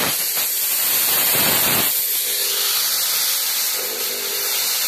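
Big Dipper BD-1500 1500-watt fog machine jetting fog with a loud, steady hiss that is strongest in the first two seconds.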